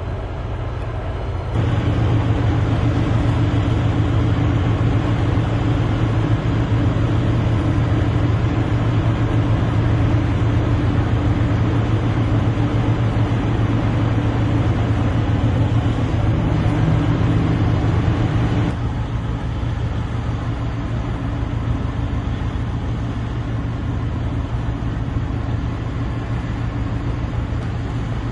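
Heavy machinery running with a steady low drone. It gets abruptly louder about a second and a half in and drops back abruptly a little before twenty seconds.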